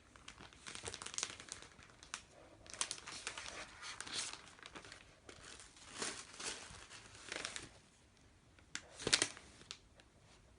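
Packaging being handled for an unboxing, crinkling and rustling in irregular bursts, with one sharper, louder crinkle near the end.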